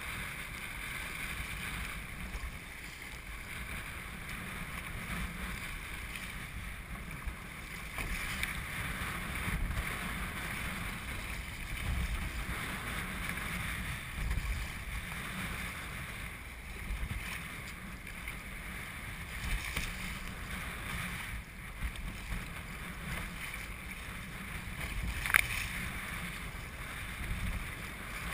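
Wind buffeting the microphone and water sloshing and splashing against a sea kayak's hull as it is paddled through choppy water, rising and falling with the waves and strokes. A single sharp knock stands out near the end.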